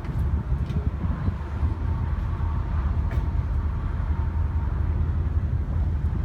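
Car ferry underway, its engines giving a steady low rumble, with wind buffeting the microphone on the open deck.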